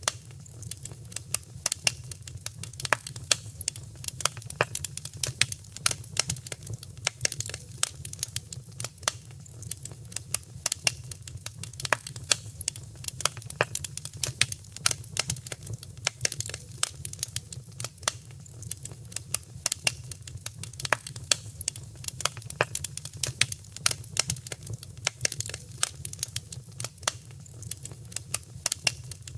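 Fireplace fire crackling: dense, irregular pops and snaps over a steady low rumble.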